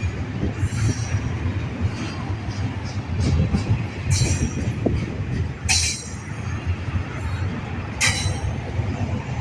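Freight train cars rolling past: a steady low rumble with a few short high-pitched wheel squeals, about four in all.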